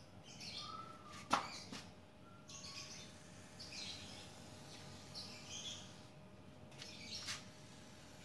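Short, intermittent hissing bursts from an aerosol can of silicone spray being sprayed onto a car door's rubber seals, with a sharp click about a second in.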